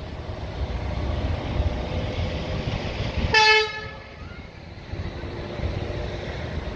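A single short horn toot a little over three seconds in: one clear note lasting under half a second, the loudest thing heard. Under it, a steady low rumble of wind on the microphone.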